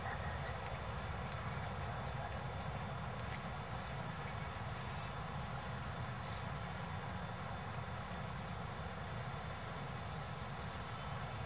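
Steady low outdoor rumble with a faint hiss above it, unchanging throughout.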